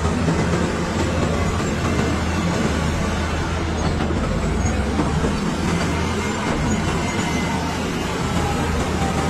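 Caterpillar crawler bulldozer's diesel engine running steadily, a low drone with an even level throughout.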